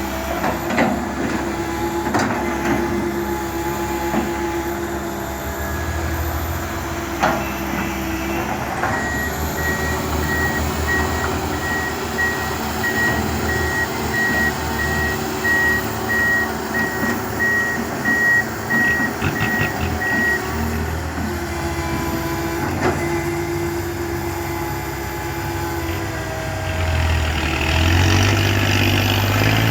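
Diesel earthmoving machinery running steadily, with a reversing alarm beeping evenly for about ten seconds in the middle and a few sharp metallic knocks. Near the end an engine revs up and grows louder.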